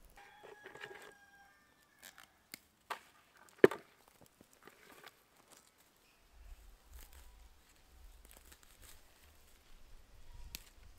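A chicken calls at the start, one held call lasting about a second. A few sharp knocks follow, the loudest a little over three and a half seconds in. A low rumble sets in about halfway through.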